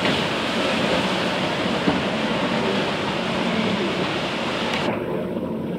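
Many motorboat engines running at speed together, blending into a steady drone with the rush of water and spray from their wakes. The sound turns duller for about a second near the end.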